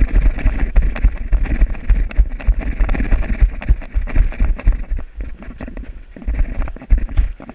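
Running footsteps with the camera jolting at each stride: a quick, uneven run of heavy low thumps and rustle, easing off for a moment about five seconds in.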